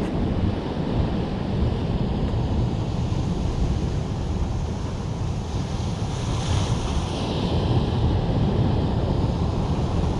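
Sea waves breaking and washing over coastal rocks, with wind rumbling on the microphone; one wave hisses louder about six to seven seconds in.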